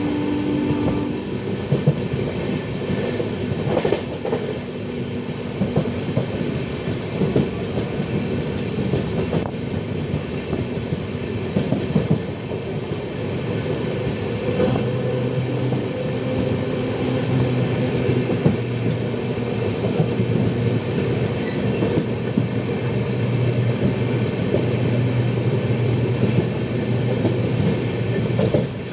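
Tamil Nadu Express passenger train running along the track: a steady rumble of the coaches with the clickety-clack of wheels over rail joints. A low steady hum joins about halfway through.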